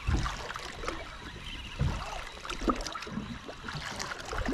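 Spinning reel cranked to bring in a hooked fish, with several dull low knocks of handling and a faint trickle of water.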